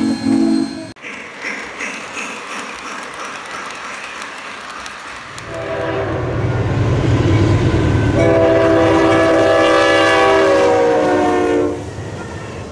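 A steam whistle cuts off about a second in, then a passing train rolls by. From about halfway through, a diesel locomotive's multi-note air horn sounds as a chord over the engine's rumble, turning louder at about 8 seconds and stopping near the end.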